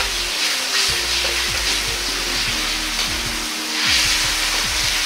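Ketchup-based sauce sizzling as it fries in hot oil in a carbon-steel wok, a steady hiss, while a metal ladle stirs it around the pan.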